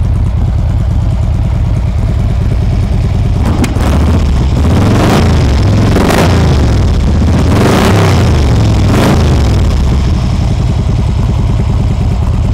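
2015 Harley-Davidson Street Glide's 103 cubic inch V-twin idling through Vance & Hines 4-inch slash-cut slip-on mufflers, the throttle blipped about four times in the middle before it settles back to idle.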